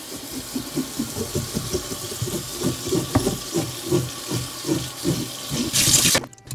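Kitchen faucet running onto a striped bass in a stainless steel sink, with hands rubbing along the wet fish in repeated swishes, about two to three a second. The water gets louder and brighter near the end.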